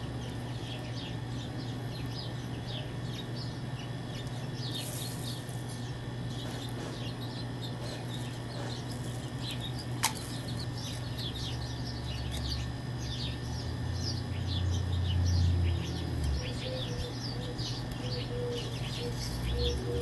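Small birds chirping again and again over a steady low hum. A single sharp click comes about halfway through, and a low rumble swells in the second half.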